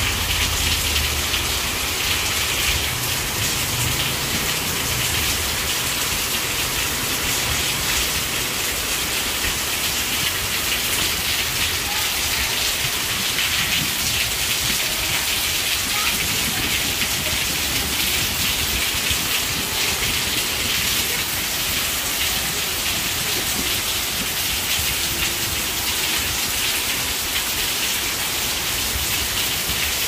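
Steady rain falling, an even hiss of drops, with a low rumble fading out in the first few seconds.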